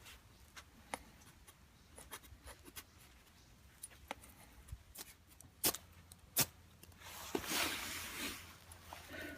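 Light scratching and small clicks from hand-work on hemp-rope tinder and a ferro rod, with two sharp clicks and then a rushing scrape about a second long near the end.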